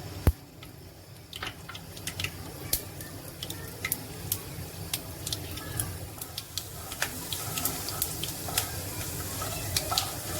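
Mustard seeds and urad dal spluttering in hot oil: a steady sizzle with many sharp, irregular pops, the seeds crackling as they burst. A single sharp knock at the very start.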